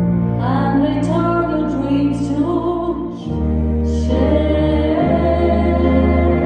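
Live ballad performance: a woman's solo voice singing a slow melody with vibrato over sustained piano and bass chords. The chord changes about three seconds in.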